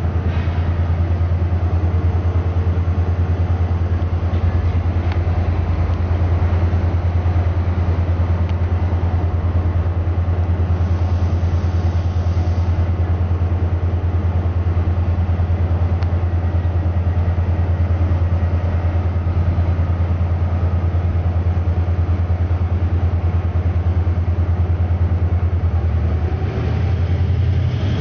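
Diesel train engine idling: a steady low rumble that dips briefly near the end.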